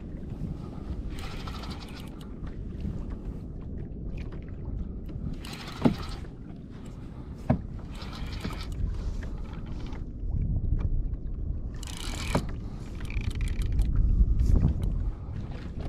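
Fishing reel cranked in short spurts against a hooked fish, its gears giving bursts of fast clicking. Under it runs a steady low rumble of wind and water against the kayak hull, with two sharp knocks near the middle.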